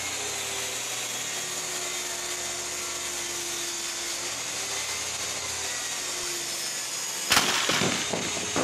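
Circular saw mounted under a homemade table-saw top, running steadily as a board is ripped along the fence. About seven seconds in, a sudden loud clatter of wooden knocks as the cut pieces come free and are handled.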